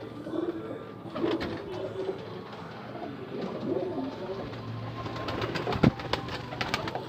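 Domestic pigeons cooing in their coop, low and wavering, with scattered clicks and a sharp knock about six seconds in.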